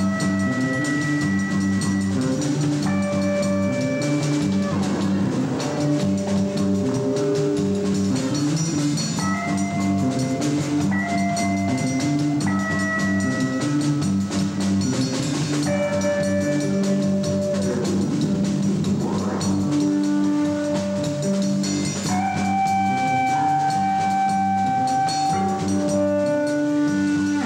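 Live band playing an instrumental jam: electric bass and drum kit under long held higher melody notes.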